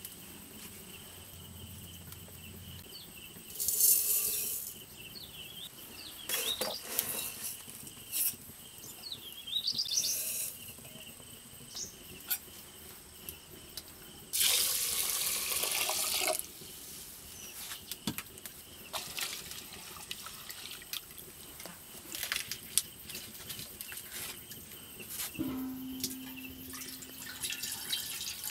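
Water poured from a clay jug onto uncooked rice in an aluminium pot, a steady pour of about two seconds midway, as the rice is washed before cooking. Around it are a few shorter noisy bursts and scattered small knocks and clinks from the rice and vessels being handled.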